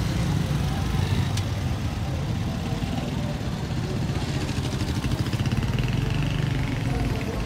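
Street traffic: vehicle engines running at low speed, with a motorcycle engine passing close by about four seconds in, its rapid firing audible for a couple of seconds.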